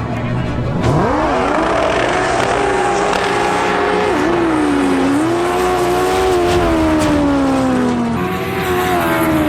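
Racing jet ski engine revving up sharply about a second in, then holding a high, wavering note that slowly falls. A second engine note comes in near the end.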